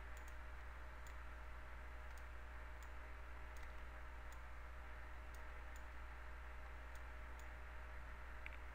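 Faint computer mouse clicks, scattered about one or two a second, over a steady low hum.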